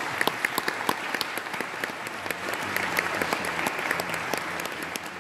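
An audience applauding steadily in a dense patter of many hands clapping, fading away at the very end.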